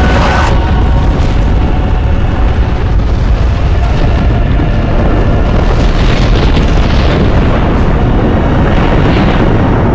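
Film sound effects of explosions: a loud, continuous rumbling boom.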